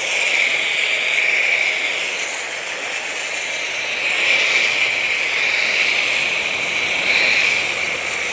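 Foam cannon on an electric high-pressure washer spraying snow foam onto a car's bodywork: a steady hiss that swells slightly now and then.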